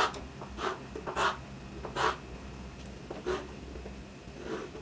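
Chalk scraping on a chalkboard as straight table lines are drawn: about six short strokes, spaced half a second to a second apart.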